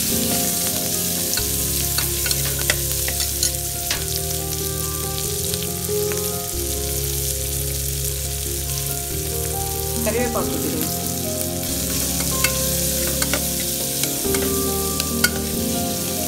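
Chopped onions and green chillies sizzling in oil in an aluminium pressure cooker, stirred with a steel ladle that clinks and scrapes against the pot now and then.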